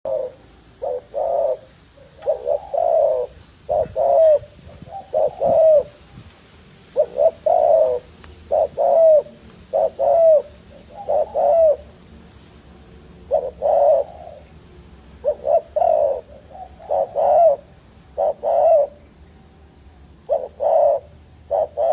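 Spotted dove cooing: short phrases of two to four low coos, each note dipping in pitch at its end, repeated every second or two with one longer pause near the middle.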